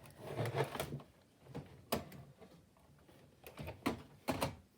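Quiet handling noise: a few sharp clicks and knocks spaced irregularly, with a small cluster of them near the end.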